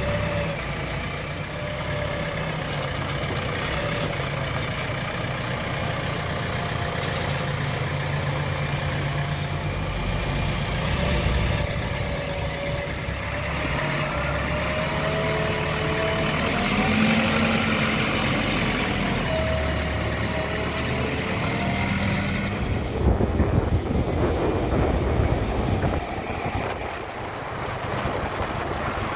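JCB 3DX Eco Xpert backhoe loader's diesel engine running, with a whine that rises and falls in pitch. About two-thirds of the way through the sound turns rougher and noisier.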